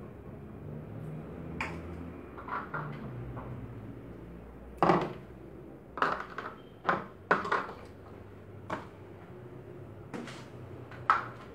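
A series of separate knocks and clinks of kitchen utensils, pots and containers being handled, the loudest about five seconds in.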